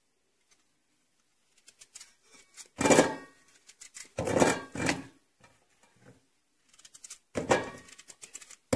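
Raw pumpkin being cut by hand with a knife, with crisp crunching cuts and chunks dropping into a metal pot with dull knocks, in three or four short spells separated by pauses.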